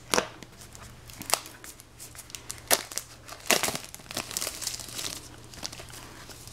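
Clear plastic shrink-wrap film crinkling as it is cut and peeled off a cardboard box, with four sharp snips from a pair of spring-loaded pruners cutting the film in the first four seconds.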